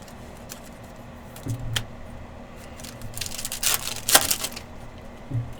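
Trading-card packs and cards being handled: scattered light clicks, then about three seconds in a stretch of crinkling foil wrapper with a sharp snap in the middle.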